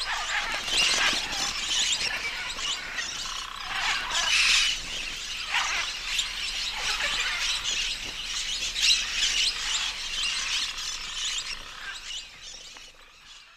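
A flock of parrots calling together, many overlapping harsh squawks and chatter, fading out near the end.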